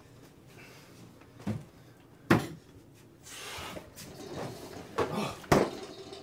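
A few sharp knocks and clunks from things being handled in a kitchen, the loudest about two seconds in and two more close together near the end, with a short rustle in between.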